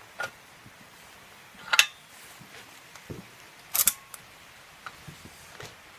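Metal clicks and clacks of a homemade 20mm big-bore airgun's action being handled as a lead bullet is loaded into the breech. Two sharp clacks stand out about two and four seconds in, the second followed by a short metallic ring, among softer clicks.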